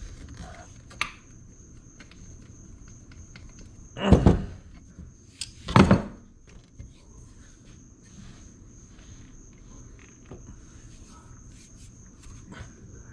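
Tool work on a stuck lowrider hydraulic cylinder: two loud knocks about a second and a half apart, with light clicks and taps between, as the cylinder is forced to try to free it.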